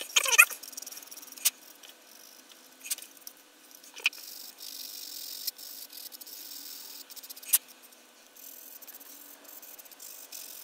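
Hand sanding a plastic model kit: a sanding sponge and sanding stick rubbing over the fuselage seams with a soft, steady scratchy hiss. A few light clicks and taps come from the parts and tools being handled on the cutting mat.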